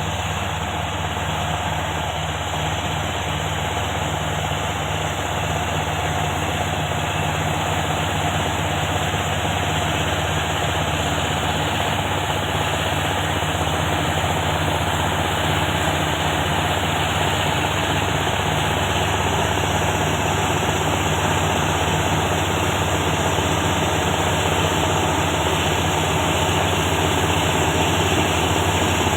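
Large bulldozer's diesel engine running steadily with a deep hum, growing slightly louder over time.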